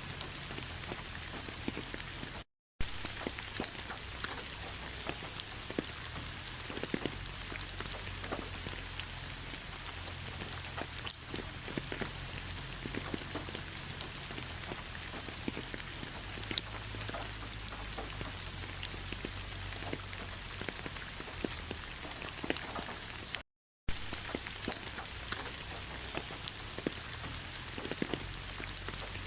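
Rain falling on fallen autumn leaves: a steady patter of drops with scattered sharper ticks. The sound cuts out completely twice for a split second, near the start and near the end.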